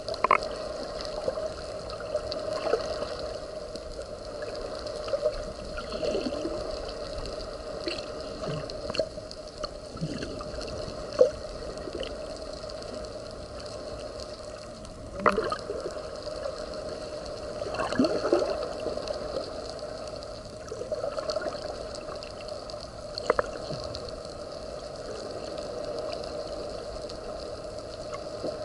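Underwater sound recorded by a diver's camera: a steady hum with short bursts of gurgling from the diver's exhaled scuba bubbles every few seconds.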